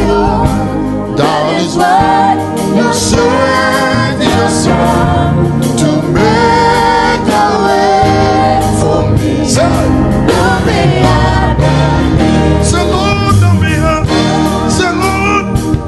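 Gospel worship song: a male lead vocalist singing over a backing choir, with keyboard and electric guitar accompaniment.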